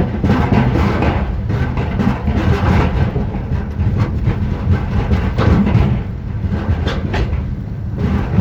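Steady rumbling and rattling of a moving vehicle, heard from on board.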